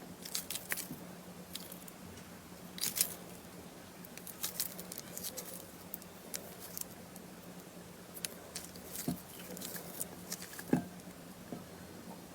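Slime being squished and pressed by hand, making quiet irregular sticky clicks, crackles and pops, over a faint steady low hum.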